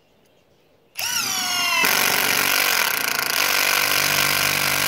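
Cordless impact driver driving a lag screw through a roof flashing mount into a rafter. It starts about a second in with a motor whine that falls in pitch, then switches abruptly to the harsher rattle of the impacts as the lag is cinched down tight.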